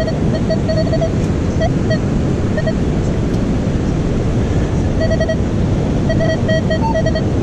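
Metal detector sounding its target tone: runs of short, same-pitched beeps, several a second, as the coil passes back and forth over a target in the sand. A slightly higher beep comes near the end. Steady surf and wind noise on the microphone lie under it throughout.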